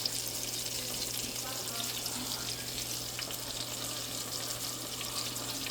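Sliced green tomatoes frying in olive oil in a pan: a steady sizzle with small crackles and spits.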